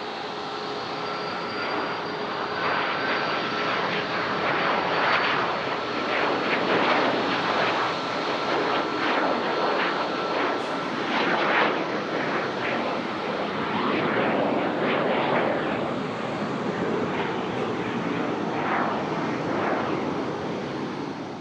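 An airplane's engines running loud and steady as it passes, the noise swelling and easing, with a thin steady whine that fades out about midway.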